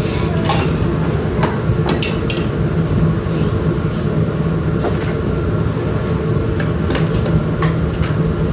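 Scattered light clinks and taps of a fork against a dish, over a steady low hum.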